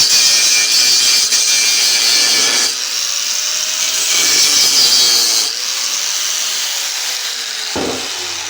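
Angle grinder's cut-off disc grinding through the steel shell of a refrigerator compressor: a loud hiss of cutting that eases off about three seconds in, bites again for a couple of seconds, then lightens, with the motor's pitch sliding up and down between bites. A single knock near the end.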